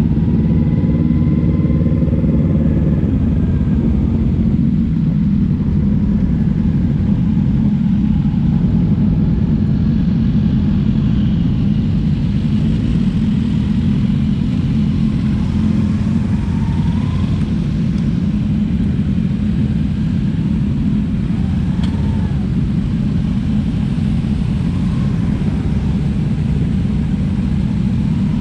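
Kawasaki Z300's parallel-twin engine running at low speed among a group of other motorcycles' engines, a steady low rumble.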